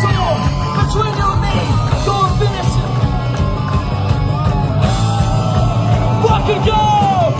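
A punk rock band playing live and loud, with electric guitars, drums and a sung, shouted lead vocal.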